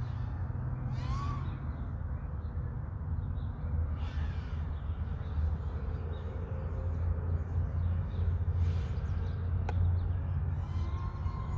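Wind buffeting the microphone as a steady low rumble, with crows cawing several times across it.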